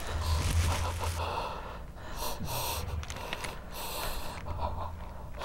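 A person's breathing: several loud, gasping breaths, with a low steady hum underneath.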